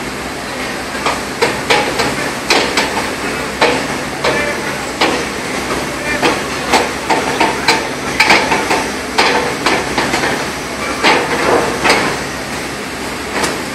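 Irregular sharp knocks, one or two a second, like hammer blows, over a steady background hum of machinery.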